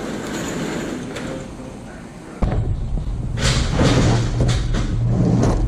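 A heavy boxed machine being set down and shifted in a pickup truck's bed: several thuds and knocks, over the steady hum of an idling truck engine that starts abruptly a little over two seconds in.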